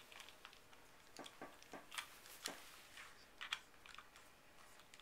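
Faint, irregular clicks and taps of a plastic treat bottle being pawed and turned by a raccoon, a dozen or so small knocks spread over the first few seconds.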